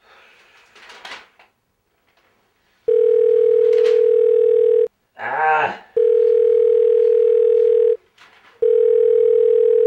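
Red corded push-button desk telephone ringing with an electronic ringer: one steady single tone in three bursts of about two seconds each. Between the first two rings there is a short groan from a man's voice.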